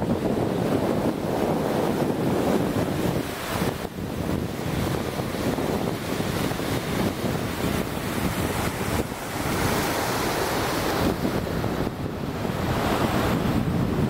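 Steady rushing roar of a large waterfall, with wind buffeting the microphone. The sound changes character a few times.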